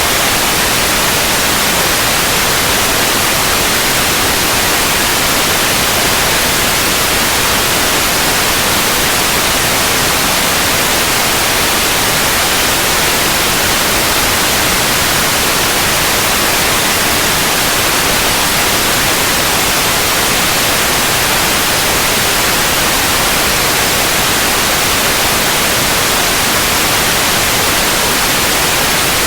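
Synthetic white noise, steady and unchanging, with its energy spread evenly and strongest in the upper frequencies, like a continuous hiss.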